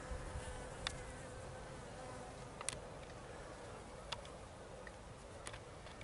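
A flying insect buzzing with a faint, steady drone, with a few sharp clicks scattered through it.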